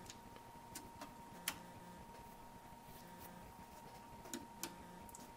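A few faint clicks from a hand working the controls and input connector of a Tektronix 2235 oscilloscope. A faint steady whine lies underneath.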